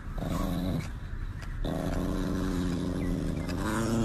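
Chihuahua howling in long, steady-pitched moans: a short one, then after a pause a longer one of more than two seconds.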